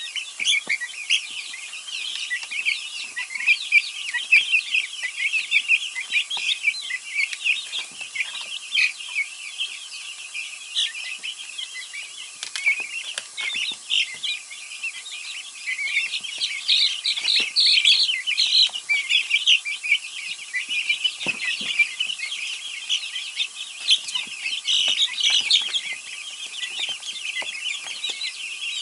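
A brood of young Easter Egger chicks peeping continuously while they feed, many short high-pitched chirps overlapping, with a few sharp taps scattered through.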